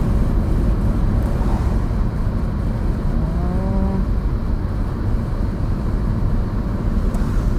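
Scion xA's 1.5-litre four-cylinder car driving, with steady engine and road noise inside the cabin. About three seconds in, a short rising pitched tone lasting about a second sounds over the rumble.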